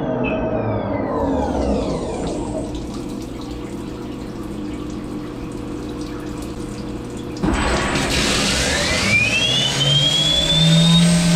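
CNC milling machine spindle winding down with a falling whine, followed by a quieter stretch of steady machine hum and flood coolant running. About seven and a half seconds in the level jumps and the spindle spins back up with a rising whine that settles into a steady pitch as the next adaptive clearing cut begins.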